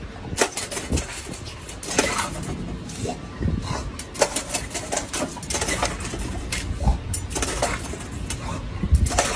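English bulldog lapping and biting at water spurting from a step-on paw-pedal dog fountain: irregular wet slurps, splashes and clicks with a few low thumps.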